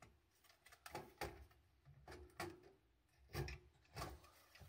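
A circuit board being handled and set down into an aluminium chassis: about six soft knocks and scrapes of board on metal, faint overall.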